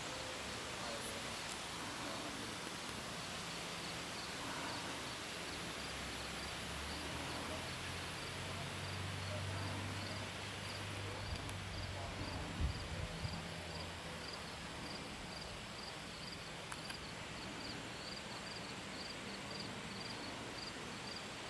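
Outdoor rural ambience: an insect chirping steadily about twice a second over a faint hiss. A low hum swells in the middle, and a few sharp knocks come about two-thirds of the way through.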